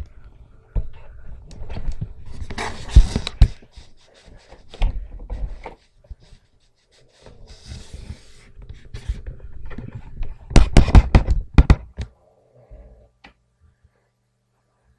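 Handling noise of a camera being carried and set down: rustling, bumps and sharp knocks close to the microphone, with breathing. A cluster of loud knocks comes about eleven seconds in.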